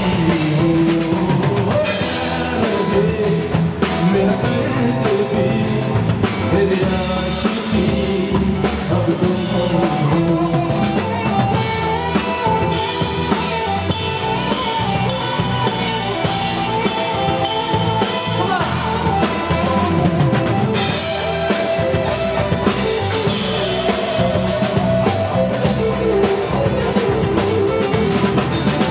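Live band music with a steady beat on drum kit and hand percussion, keyboards, and a voice singing.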